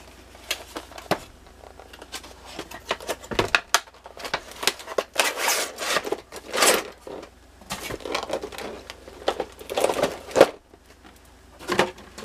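Cardboard box and clear plastic packaging being opened and pulled apart by hand: irregular rustling, crinkling and scraping with scattered clicks, busiest in the middle.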